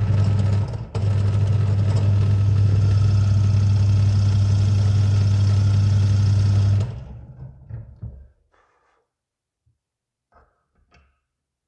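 Small benchtop drill press switched on and running steadily for about seven seconds, with a brief dip about a second in, while drilling a deeper hole into a wooden rifle stock; it is then switched off and spins down, followed by a few faint clicks.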